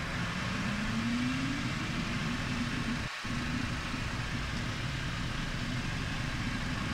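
Cessna Citation X's Rolls-Royce AE 3007 turbofans spooling up to takeoff power at the start of the takeoff roll, heard inside the cockpit: a steady rushing noise with a tone that rises in pitch over the first two seconds. The sound drops out briefly about three seconds in.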